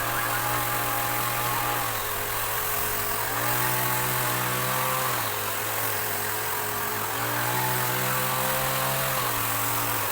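A small engine running, its speed stepping up and then back down about every two seconds.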